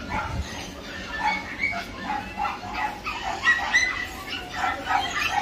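A chorus of short, high-pitched yips and whimpers from caged young animals, many calls overlapping in quick succession.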